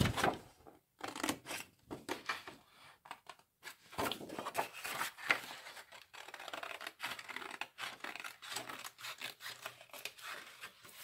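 Scissors cutting a strip from a sheet of scrapbooking paper: a run of short, crisp snips at irregular intervals, mixed with the rustle of the paper being turned and held.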